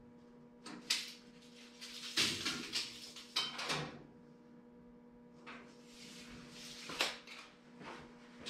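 Handling noises from a pine board being positioned across the truck bed frame and clamped: scattered knocks, clunks and short scrapes, busiest a couple of seconds in, over a steady low hum.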